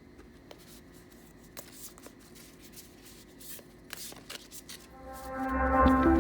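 A deck of matte cardstock cards being handled and shuffled: soft scattered rustles and light clicks of the cards. Music fades in about five seconds in and becomes the loudest sound.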